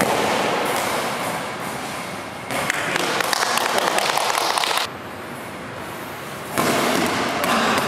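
Goalball, a rubber ball with bells inside, jingling and rattling as it is bowled and rolls across a wooden gym floor. The sound comes in several stretches that break off abruptly, with a quieter gap about five seconds in.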